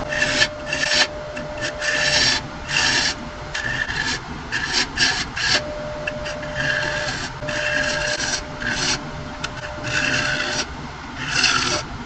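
Turning tool cutting spinning ashe juniper on a wood lathe: a run of short scraping cuts, each under a second, over a steady whine.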